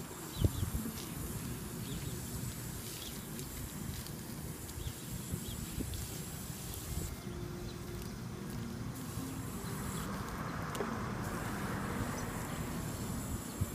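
Garden hose spraying water onto a dog's coat and the wet pavement, a soft hiss that swells about ten seconds in, over a steady low rumble, with a short knock about half a second in.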